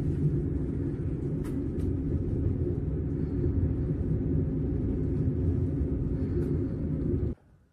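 Passenger train running, heard from inside the carriage: a steady low rumble with a couple of faint clicks, cutting off suddenly near the end.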